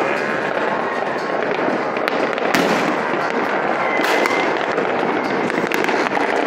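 Many fireworks and firecrackers going off at once across a city, blending into a steady crackling din, with a few sharper bangs standing out over it.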